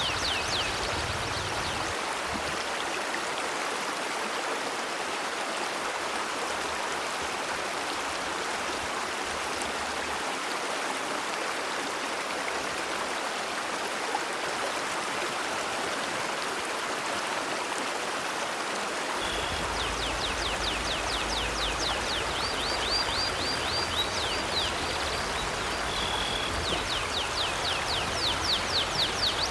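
A river flowing, a steady rushing of water. About two-thirds of the way in, a bird starts singing over it: fast runs of short down-slurred chirps, with a few brief whistled notes.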